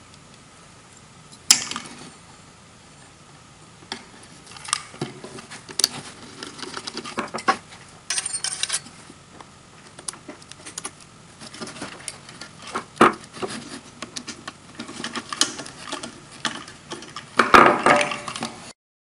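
Small metal clinks, clicks and rattles of stainless steel hose clamps and a corrugated stainless steel flex pipe being handled and fitted onto a plastic bilge pump's outlet tubing, on a wooden workbench. The clicks come irregularly, with a louder clatter near the end before the sound cuts off.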